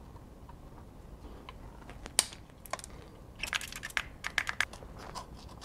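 Light clicks and taps from hands handling the Bluetooth speaker's parts: one sharp click about two seconds in, then a quick run of clicks about a second later.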